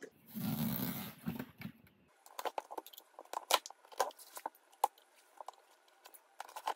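Cardboard shipping box being opened by hand: a noisy rip of packing tape about half a second in, then irregular crackling, clicking and rustling as a utility knife cuts along the tape and the cardboard flaps are pulled apart.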